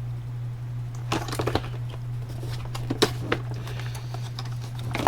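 Clicks and rattles of small electronic parts and plastic storage boxes being handled while rummaging through an electronics kit: a cluster about a second in, sharp clicks around three seconds and another near the end. A steady low electrical hum runs underneath.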